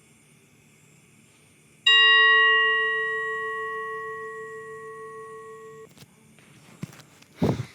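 A single struck bell-like chime rings out about two seconds in and fades for about four seconds before cutting off abruptly. A few faint clicks and a short thump follow near the end.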